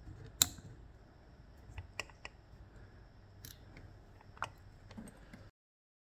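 Scattered small, sharp metallic clicks and taps from the parts of an Ezcurra DS-10 lock and tools being handled during disassembly. The loudest click is about half a second in. The sound cuts off abruptly near the end.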